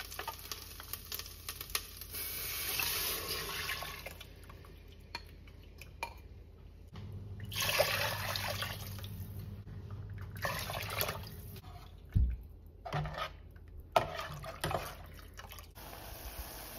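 A thick tomato mixture is scraped with a spoon out of a bowl into a steel pot. About seven seconds in, water pours from the bowl into the pot with a rush. Near the end come a few sharp knocks of pots and cookware.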